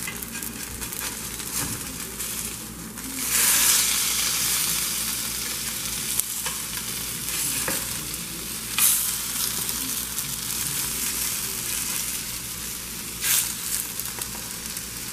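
Folded queso birria tacos frying in a pan in a little olive oil: a steady sizzle that swells louder about three seconds in and again briefly twice later.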